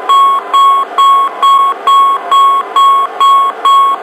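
Airbus A320 overspeed aural warning: the continuous repetitive chime, a pitched tone repeating evenly about twice a second. It sounds with the master warning and signals that airspeed has exceeded VMO/MMO.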